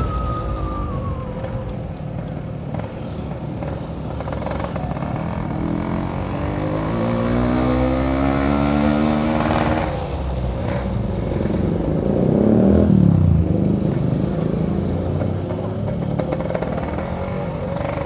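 Yamaha RX-King's 135cc two-stroke single-cylinder engine running while being ridden, its pitch climbing steadily as it revs up from about five seconds in to about ten seconds. A louder engine surge follows about twelve seconds in.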